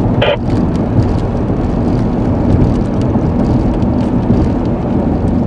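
Car driving along a highway: a steady engine hum under heavy road and wind noise.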